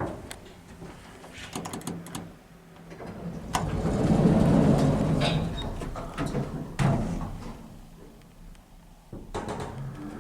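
Lift doors sliding, with sharp clunks and a longer rumbling run through the middle.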